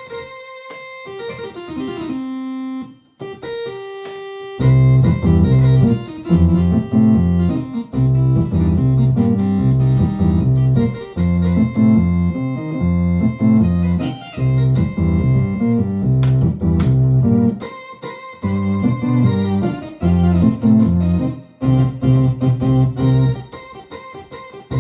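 Philips Philicorda 22GM755 organ, a transistor organ with valve amplifier and spring reverb, being played with vibrato. A few sparse single notes open, then from about four and a half seconds in it plays loud, bass-heavy chords in short phrases with brief pauses between them.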